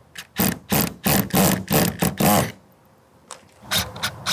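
Cordless screw gun driving gasketed roofing screws through a rubber pipe boot's flange into a steel standing seam panel in short trigger pulses. There are about seven quick bursts over two seconds, a pause, then another run near the end, feathering the screws down to seat the washers without tearing the boot.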